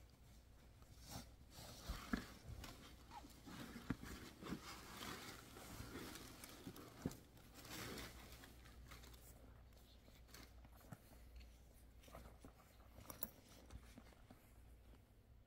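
Faint rustling and handling noise of a cotton drawstring dust bag being untied and slid off a leather sling bag, with scattered small clicks; the rustling thins out after about nine seconds.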